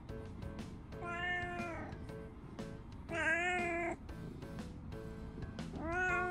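Brown tabby cat meowing three times while being stroked. The middle meow is the loudest, and the last is still rising at the end. Background music plays throughout.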